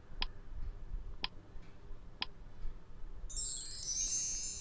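Quiz countdown-timer sound effect: a short ringing tick once a second, three times. About three seconds in, as the countdown runs out and the answer is revealed, a bright, high-pitched sound effect comes in and grows louder.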